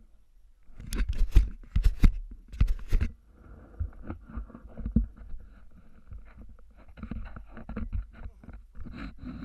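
Handling noise from an action camera being gripped and moved: a run of loud knocks and thumps in the first three seconds, then lighter rubbing and scraping with many small clicks.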